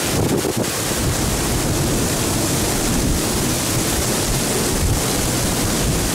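Torrential rain pouring down in a strong wind, a steady dense hiss with gusts rumbling on the microphone.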